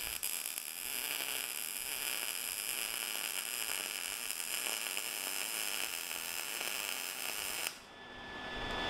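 MIG welder arc on steel, a steady crackling hiss that cuts off abruptly about a second before the end as the weld stops.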